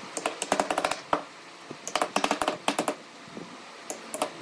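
Steel-headed claw hammer tapping pine slats down into glued mortises in a hardwood chair rail. The taps come in two quick runs of many light strikes, one near the start and one about two seconds in.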